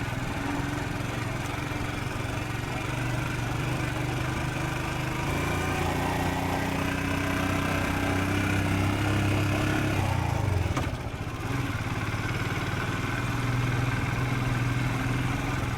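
Royal Enfield Scram 440's single-cylinder engine running steadily under way, with a rush of wind and road noise. The engine note rises slowly from about five seconds in, drops briefly around eleven seconds in, then picks up again.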